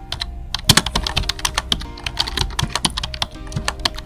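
Keyboard typing: a quick, irregular run of key clicks, several a second, as a search query is typed.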